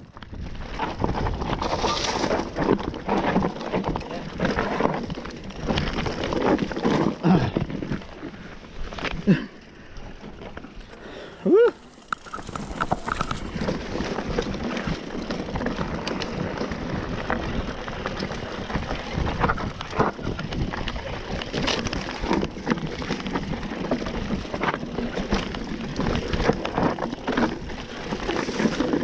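Mountain bike clattering over a rocky singletrack at speed, tyres crunching on stones and gravel with rapid knocks from the frame and chain. The rattle eases for a couple of seconds about ten seconds in, with a short rising and falling squeal.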